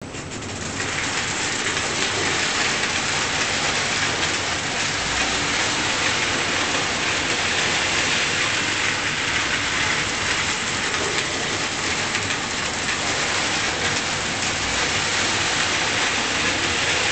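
Pre-war American Flyer O gauge electric train, locomotive and tinplate cars, running steadily around three-rail metal track, a continuous even rolling noise of metal wheels on the rails that builds up in the first second.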